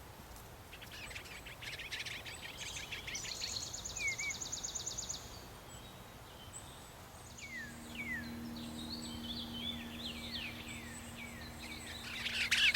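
Songbirds calling: a scratchy chatter, then a fast, even trill, then a string of short, downward-sliding whistled notes that grow louder near the end. A low steady hum runs underneath from about halfway through.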